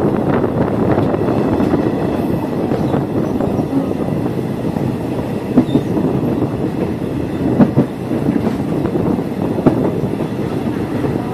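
Passenger train running along the track, heard from inside a carriage: a steady rumble of wheels on the rails, with a few sharp clacks of the wheels about two seconds apart.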